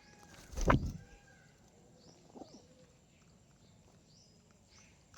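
Small birds chirping faintly, short high chirps every second or so, with one loud brief thump about half a second in and a short lower call about two and a half seconds in.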